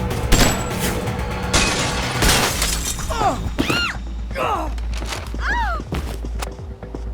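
Film action-scene sound effects over background music: a few sharp crashes with glass shattering in the first couple of seconds, then four short pitched sounds that each rise and then fall in pitch.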